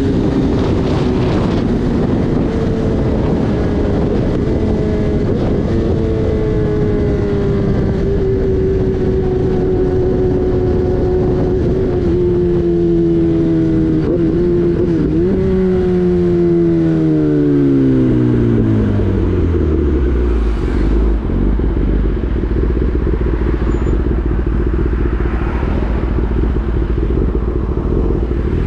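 Kawasaki Ninja ZX-10R's inline-four engine cruising at steady revs against wind noise, then the revs fall away as the bike slows. About two-thirds of the way through it settles into a low, steady idle.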